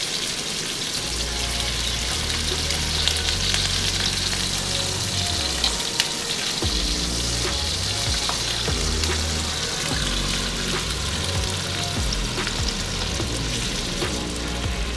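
Thin-sliced ribeye sizzling steadily in a hot oiled wok as it is turned with tongs, over background music with a bass line.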